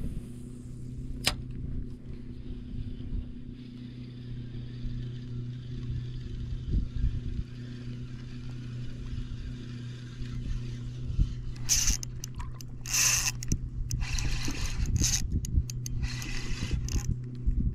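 A steady low hum throughout, with a sharp click about a second in, then bursts of water splashing from about twelve seconds on.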